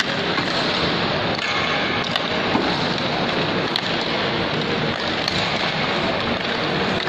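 Steady, dense crowd hubbub of a busy indoor shopping mall, with a few faint sharp clicks here and there.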